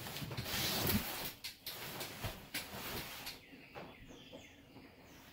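A folded rooftop tent being shifted across a concrete driveway: a scraping rush for about a second, then a few knocks as it is moved. In the quieter last part, birds chirp.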